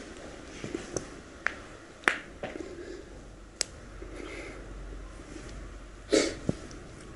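A quiet pause with no words: a few sharp small clicks and two short breathy sounds, the louder one about six seconds in.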